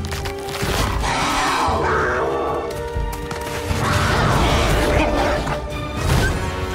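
Tense orchestral film score with held chords, overlaid by two long rough, noisy passages and a hit near the end: the sound effects of a lynx attacking a wolf.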